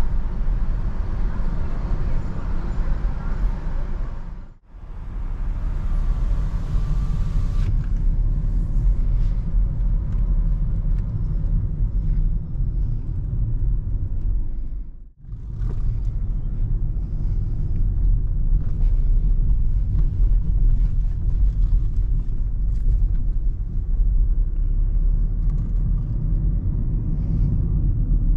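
Steady low rumble inside the cabin of a BMW 218i Active Tourer (F45) driving in city traffic: road noise and its 1.5-litre petrol engine. The sound drops out briefly twice, about four and a half and fifteen seconds in.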